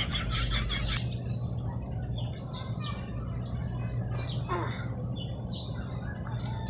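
Small birds chirping: short high chirps scattered throughout, with a rapid repeated call that stops about a second in, over a steady low hum.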